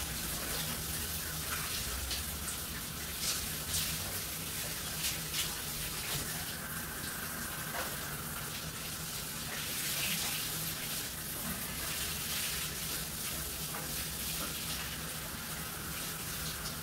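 Shower running: a steady spray of water splashing onto a person and the tiled floor of a small shower stall, with brief splashes as the body is scrubbed and rinsed.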